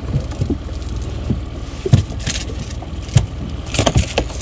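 Steady low rumble aboard a small fishing boat, with irregular knocks and thuds against the deck and a few brief rustling scrapes.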